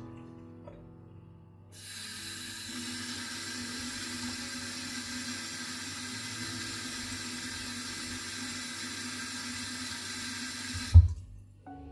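Water tap running steadily into a sink, switched on about two seconds in and cut off abruptly near the end, followed at once by a single loud, low thump.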